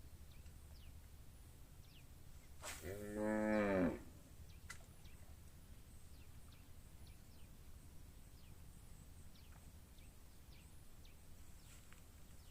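A cow mooing once, about three seconds in, a single call lasting just over a second over a quiet background.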